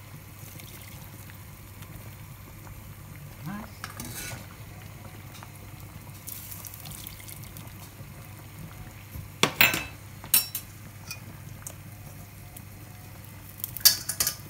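Fish stock draining through a stainless-steel mesh strainer into a pot of butter beans, a faint steady hiss of liquid. A few sharp metal clinks against the pot come about two-thirds in and again near the end.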